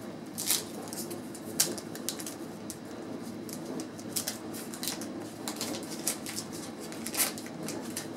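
Waxed-paper wrapper of a baseball card wax pack crinkling and tearing as the pack is opened by hand: an irregular run of crackles, with sharper tears about half a second in, at about a second and a half, and near the end.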